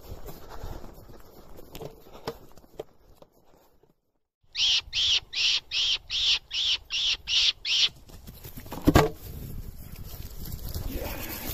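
A rapid run of about a dozen short, high squeaks, evenly spaced at roughly three or four a second, typical of a squeaker or caller used to draw a fox into the lamp. About a second after the squeaks stop comes a single sharp knock, the loudest sound in the stretch.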